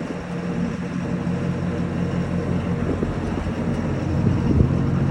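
Engine idling steadily, a low even hum with no change in speed.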